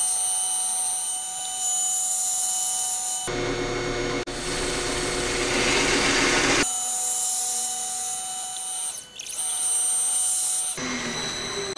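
Metal lathe running and turning a steel part: a steady whine from the machine with the hiss and scrape of the tool cutting metal. The sound changes abruptly several times, as at edit cuts between clips, and becomes noisier for about three seconds near the middle.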